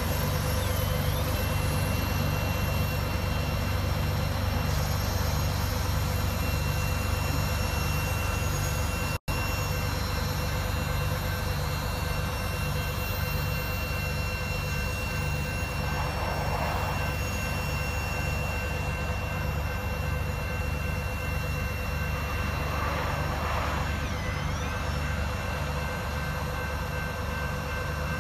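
Long intermodal freight train of container and trailer flatcars rolling past a grade crossing: a steady rumble of wheels on rail with a regular low pulse about twice a second. The sound drops out for an instant about nine seconds in.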